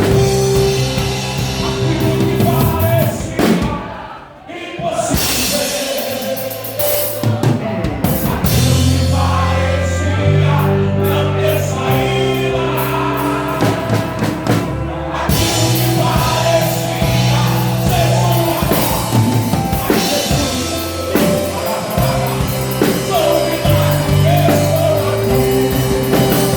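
Live band playing worship music: a drum kit and bass guitar carrying the beat under sustained chords. The music briefly drops out about four seconds in, then comes back in full.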